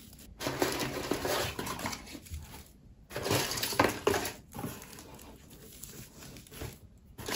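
Rustling and handling of nobilis (noble fir) branches being pushed into a floral foam arrangement, in irregular bursts.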